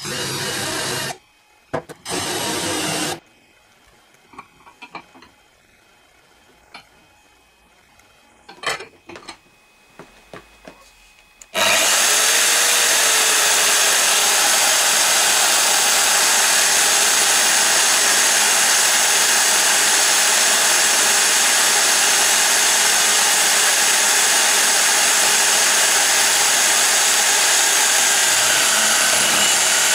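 A cordless drill runs in two short bursts of about a second each, followed by a few light knocks and clicks of tools being handled. About twelve seconds in, a drill press starts boring into clamped plywood, a loud steady whir and cutting noise that holds to the end.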